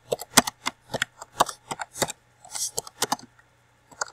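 Computer keyboard typing: a run of quick, irregular key clicks, with a brief pause near the end.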